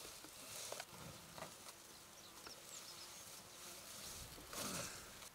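A flying insect buzzing faintly, louder and falling in pitch near the end as it passes close.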